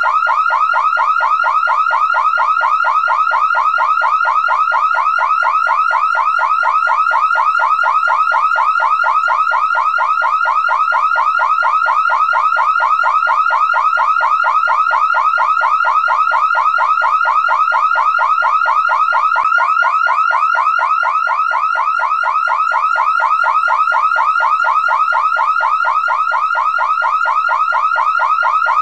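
Car alarm siren going off continuously: a loud pitched tone pulsing rapidly, several quick chirps a second, steady and without a break.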